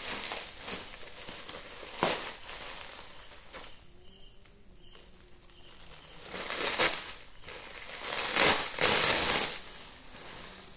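Plastic packaging bag crinkling and rustling as it is handled and pulled open, with a sharp crackle about two seconds in and the loudest bouts of crinkling in the second half.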